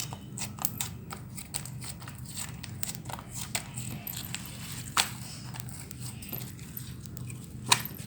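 Slime being squeezed and stretched by hand, giving a run of small sticky clicks and crackles, with two louder pops, one about five seconds in and one near the end.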